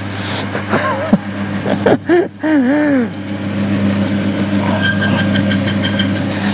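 Bench-top bearing oil test machine running with a steady electric-motor hum while its test bearing is loaded by hand through the lever arm. A higher whine from the machine fades out and returns near the end, and a few brief wavering tones sound about one to three seconds in.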